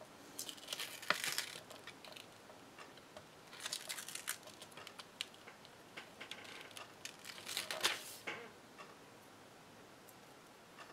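Faint crinkling and crackling as a small paper die cut is peeled off a sheet of sticky adhesive micro-dots with tweezers, the clear plastic protective film rustling. It comes in three short stretches: near the start, around four seconds in, and seven to eight seconds in.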